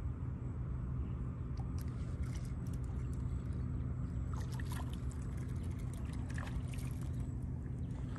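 Light splashing and trickling water, in scattered bursts through the middle, over a steady low hum.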